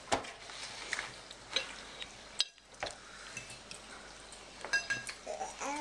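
Cutlery and dishes clinking at a dinner table: scattered light clicks over a faint hiss, with one ringing, bell-like clink about five seconds in.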